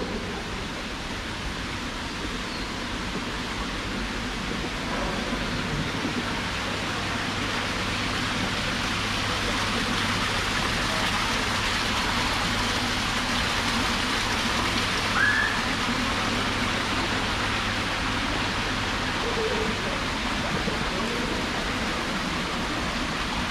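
Small artificial waterfall splashing over rocks into a pool: a steady rushing that grows louder over the first ten seconds or so. A short rising squeak about fifteen seconds in.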